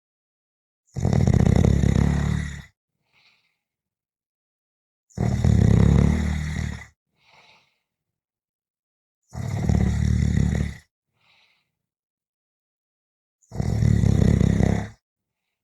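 A person snoring: four loud snores, each about a second and a half long and about four seconds apart. Each is followed by a brief faint sound, with silence between.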